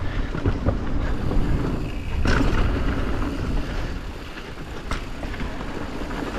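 Yeti SB140 mountain bike riding down a dirt trail, heard from a GoPro on the rider: steady tyre rumble and wind buffeting on the microphone, with a couple of sharp knocks and rattles from bumps, the loudest about two seconds in and another near five seconds.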